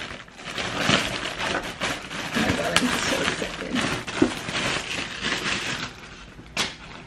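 Plastic mailer bag being torn open and handled: crackling, crinkling and tearing, dying down toward the end, with one sharp click near the end.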